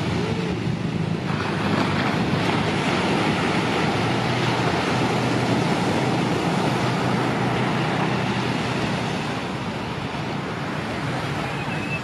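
Surf breaking and washing up a sandy beach as a steady rushing, with a low steady hum underneath.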